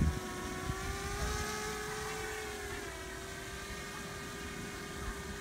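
Eachine V-Tail 210 racing drone's motors whining steadily in flight, the pitch drifting slightly up and down as the throttle changes. A brief low rumble sits at the very start.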